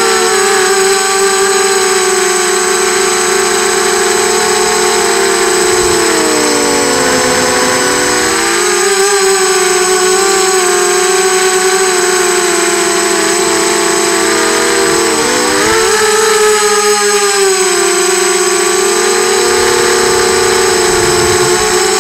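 Tweaker 180 mini quadcopter's electric motors and propellers whining steadily in flight, several close tones that drift apart in pitch and come back together about six seconds in and again around fifteen seconds in.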